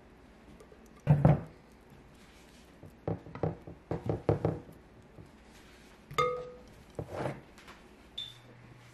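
Kitchenware knocking: a ceramic baking dish and spatula thudding and tapping on a granite countertop while white cake batter is poured and spread. One heavy thud about a second in, a quick run of knocks around three to four seconds, and a single ringing clink about six seconds in.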